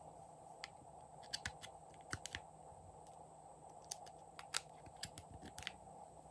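Scattered light clicks and taps, a dozen or so, some in quick pairs, from handling a butterfly-shaped eyeshadow compact and prodding its eyeshadow with a small metal tool. They sit over a faint, steady hum.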